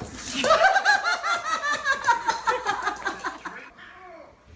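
A person laughing hard: a long run of quick laughs that fades out near the end.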